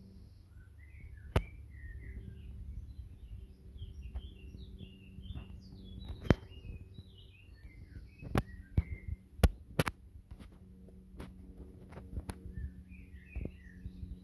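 Small birds chirping in quick twittering phrases, with a pause in the middle and more calls near the end. A dozen or so sharp clicks and knocks, the loudest sounds here, fall through the middle stretch over a steady low rumble.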